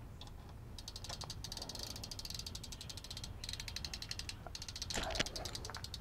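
Small ratchet handle with a hex bit clicking in rapid runs as the pinch bolts of a Shimano Alfine left crank arm are tightened. The clicking starts about a second in and comes in short bursts with brief pauses.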